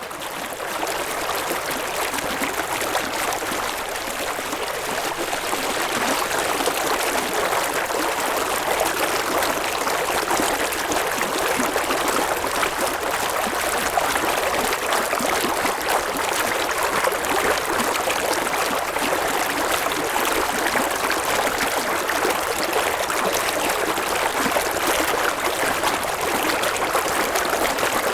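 River water flowing steadily over rocks, a continuous rushing and babbling that fades in over the first second.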